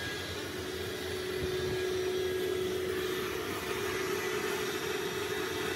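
Daniatech LiquidMaster batch mixer running: a steady whirring machine noise with a steady hum in it, from the unit's motor and pump.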